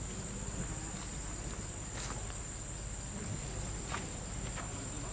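Steady high-pitched drone of insects, with a few faint clicks or rustles about two and four seconds in.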